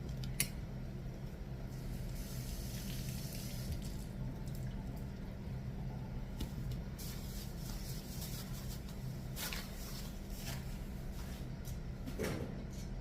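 Water running from a kitchen tap in a few short spells over a steady low hum, with a sharp click about half a second in.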